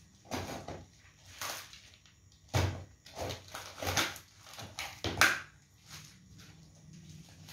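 Hands handling a taped cardboard box: irregular scrapes, taps and thumps, with a dull thump about two and a half seconds in and a sharper knock about five seconds in.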